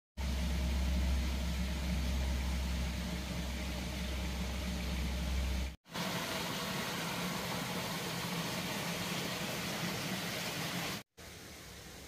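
A steady low rumble at first, then after a cut about six seconds in, the steady rush of a small waterfall spilling over a concrete weir into a stream. Near the end a quieter, even sound of stream water follows.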